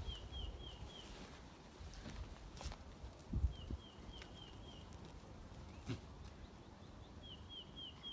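A small bird singing the same short phrase of about five quick, high chirped notes, three times a few seconds apart, over low rumbling and a few thumps.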